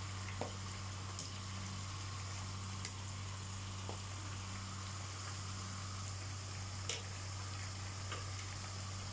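Potato slices deep-frying in hot oil in a wok: a steady sizzling hiss broken by occasional sharp pops and crackles. A steady low hum runs underneath.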